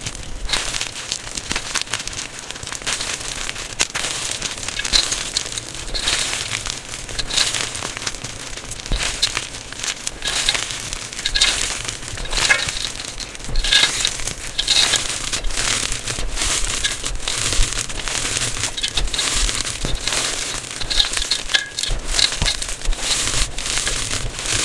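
Blocks of gym chalk crushed and crumbled between the fingers: a dense, unbroken run of dry crunches and crackles as the chunks break down into powder.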